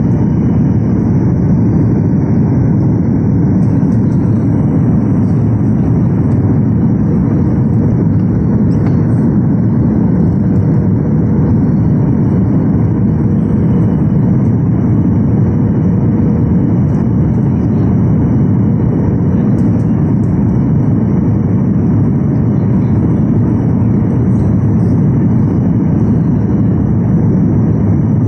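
Steady cabin noise inside a SpiceJet Boeing 737 on descent: the even sound of airflow over the fuselage and the hum of the jet engines, unchanging throughout.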